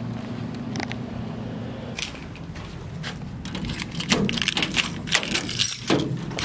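A bunch of keys jangling and clicking as a key is fitted into a doorknob lock and turned. The rattling starts about two seconds in and grows busier toward the end, as the metal knob is turned.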